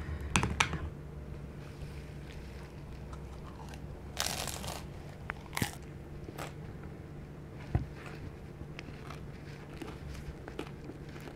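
Mouth noises of eating a crispy deep-fried dim sum roll. A few sharp clicks at the start, then one loud crunching bite about four seconds in, then chewing with scattered crisp crackles.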